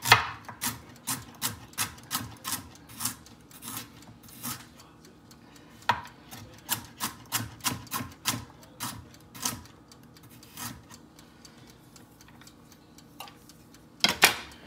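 Chef's knife slicing carrots into rounds on a cutting board, each cut ending in a sharp tap on the board, about two a second for the first ten seconds, then only now and then. A louder double knock comes near the end.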